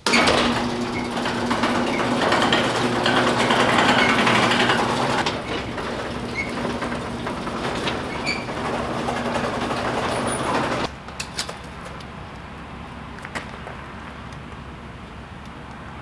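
Overhead sectional garage door and its opener motor running as the door rolls open, a steady mechanical hum that stops abruptly about eleven seconds in. A few light clicks and knocks follow.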